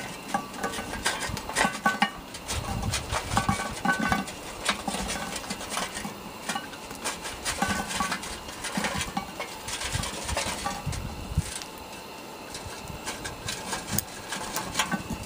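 Lit charcoal briquettes being shaken out of a metal charcoal chimney, clattering and clinking onto a cast-iron Dutch oven lid in a long run of small knocks.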